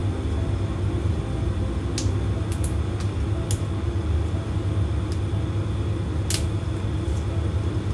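Steady low hum, like a kitchen appliance fan, with several sharp clicks scattered through it from string beans being prepared by hand; the strongest clicks come about two seconds in and about six seconds in.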